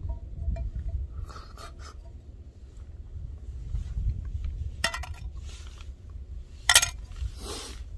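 Wooden chopsticks and a small camping frying pan clinking and scraping: a sharp clink about five seconds in, a louder clink near seven seconds, then a brief scrape, over a low steady rumble.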